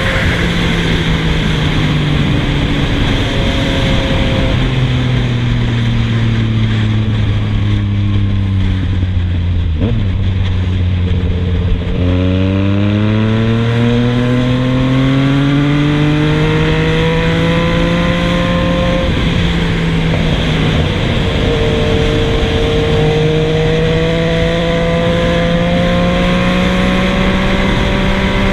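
Yamaha MT-09's three-cylinder engine through a Scorpion GP720 full 3-into-1 stainless steel exhaust, under way. The engine note falls in several steps for about the first twelve seconds, then climbs steadily, dips briefly about two-thirds of the way through, and climbs again.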